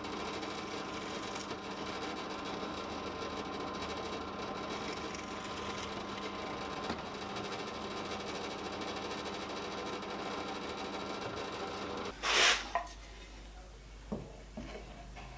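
Drill press motor running steadily while drilling holes in a pine board, cutting out about twelve seconds in. A short loud knock follows, then a few quieter knocks.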